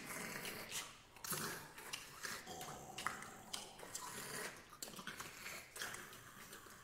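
Six singers performing contemporary extended-technique vocal sounds: scattered mouth clicks, breath noises and short hissing bursts, with a faint held sung tone about two and a half seconds in.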